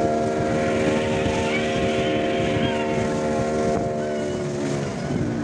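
Motorboat engine running steadily under way, with water rushing along the hull and wind on the microphone; near the end the engine note drops.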